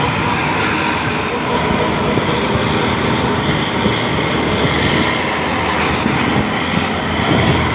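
Luragung bus with a loud aftermarket exhaust running steadily in traffic, heard from close behind together with road and wind noise.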